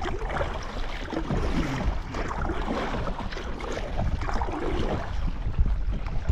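Water splashing and lapping around a kayak, with wind rumbling on the microphone.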